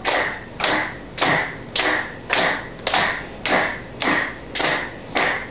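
Coin hip scarves jingling together in an even rhythm, about two shakes a second, as the dancers move their hips in unison.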